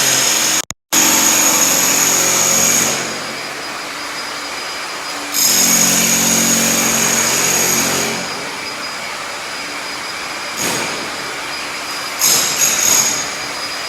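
Power tool on a construction site running in runs of a few seconds, three times, over a steady mechanical hum; the sound cuts out completely for a moment about a second in.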